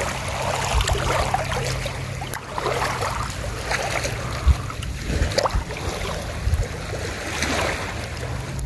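Small waves lapping against shoreline rocks, with wind on the microphone and a low steady hum underneath.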